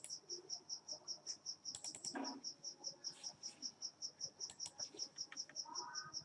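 A cricket chirping steadily, a high chirp about five times a second, with a few soft computer mouse clicks.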